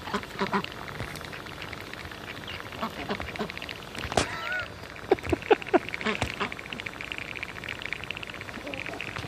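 Ducks chattering their bills, a fast, dense ticking that sounds like dabbling in water though no water is there, with a few short calls near the middle.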